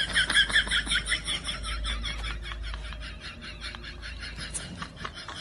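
Puppy giving a rapid run of short, high squeaky cries, about six a second, slowly fading.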